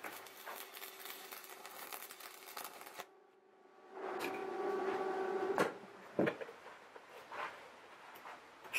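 Electric arc welding on a steel rudder-iron strap: the arc crackles and sizzles for about three seconds, stops abruptly, then a second shorter run with a steadier hum ends about five and a half seconds in. A few knocks and clicks follow. The weld bead is being run to make the strap bend upward.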